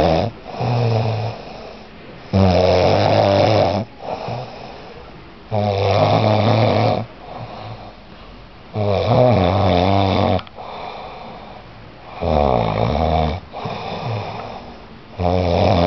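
A person snoring heavily in a drunk, exhausted sleep. A loud, rattling snore of about a second and a half comes roughly every three seconds, each followed by a shorter, quieter snore.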